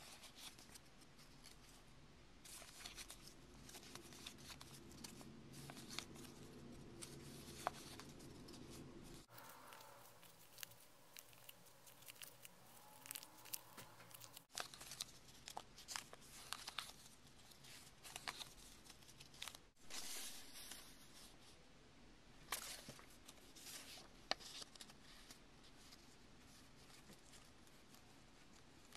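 Faint rustling and crinkling of a paper hexaflexagon being flexed in the hands, with many small clicks and crackles of folded paper.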